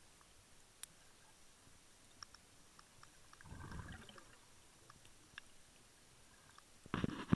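Faint, muffled underwater sound of a scuba diver's exhaled regulator bubbles, heard through a camera housing: a short rush of bubbles a little after halfway and a louder, shorter one near the end, with scattered faint clicks between.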